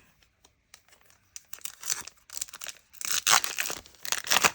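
Foil Pokémon card booster pack wrapper crinkling and tearing open by hand, in three rustling bursts from about a second and a half in, the loudest near three seconds.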